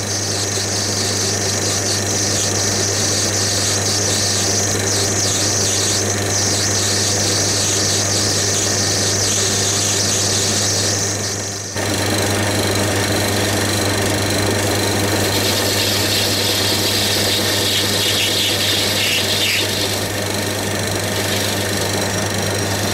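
Small metal lathe running, a steady motor hum with a high hiss as the tool cuts a brass bar. The sound drops out for a moment about halfway through, then carries on.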